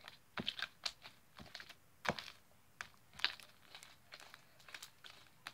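Sticky homemade slime being kneaded and stretched by hand, giving quiet, irregular clicks and crackles as it pulls apart from the fingers.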